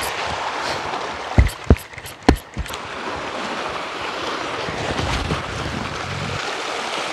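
Steady wind noise on the microphone and waves washing against shore rocks, with a few sharp knocks about one and a half to two and a half seconds in.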